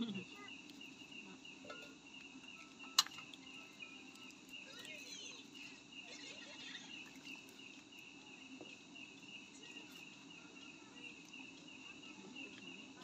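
Night insects, crickets, chirping steadily in a fast pulsing trill over a low murmur. A single sharp click stands out about three seconds in.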